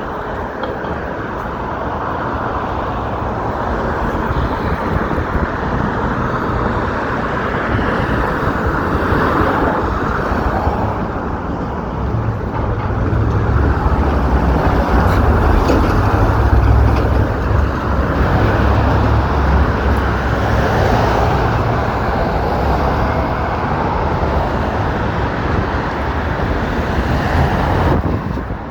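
City street traffic: cars passing steadily, with a low rumble that grows loudest through the middle.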